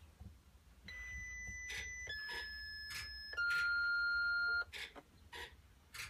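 Blue Bird school bus instrument cluster sounding its key-on self-test: three steady electronic beeps, each just over a second long, stepping down in pitch, the last one loudest. Faint clicks come about every half second throughout.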